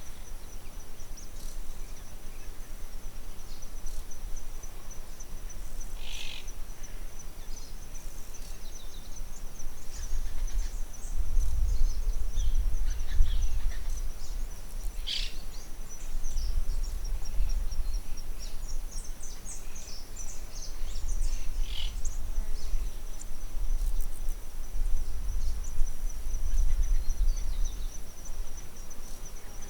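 Outdoor nature ambience: a steady high insect trill runs throughout, with a few short bird calls now and then. A low rumble comes and goes in several swells.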